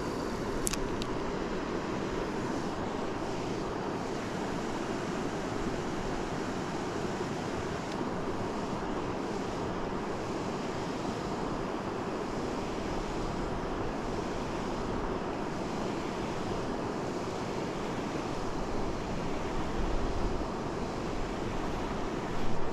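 Steady rush of river water running over a shallow riffle, an even noise that holds throughout.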